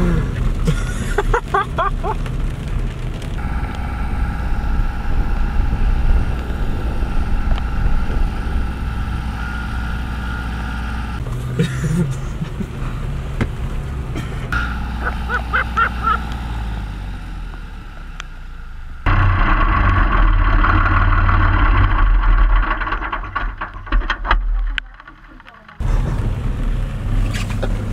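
Vehicles running: steady engine and road noise, heard mostly from inside a car's cabin, in several stretches that change abruptly from one to the next.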